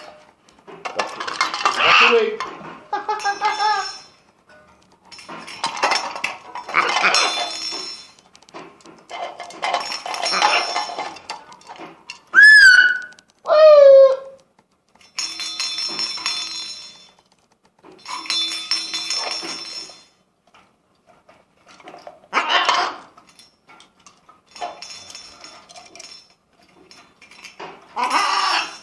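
Blue-and-gold macaw squawking in repeated harsh bursts every couple of seconds, with two loud calls about halfway through that rise and fall in pitch. Metallic clinking and rattling is mixed in.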